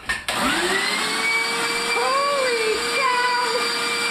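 Vacuum cleaner switched on about a quarter second in, its motor spinning up with a rising whine over about a second, then running steadily.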